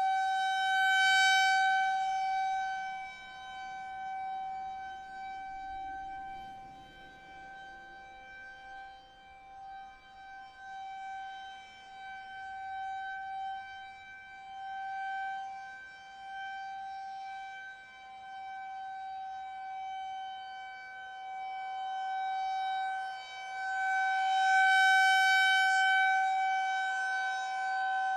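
Federal Signal 2001-130 rotating outdoor warning siren sounding a steady full-alert tone. Its single pitch holds while the sound swells and fades as the horn turns, loudest about a second in and again near the end.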